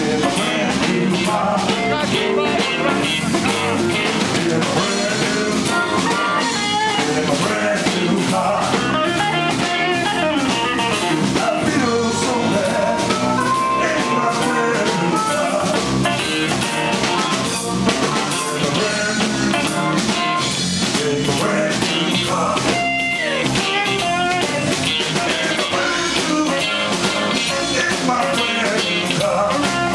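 Live blues band playing steadily: a harmonica played into a microphone carries the lead over electric guitar, electric bass and drum kit.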